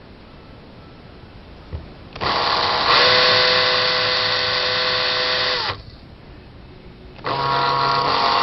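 Cordless drill motor whining as it spins a bobbin winder, in two trigger-pulled runs: one of about three and a half seconds starting about two seconds in, its pitch sinking slightly as it stops, and a second short run near the end.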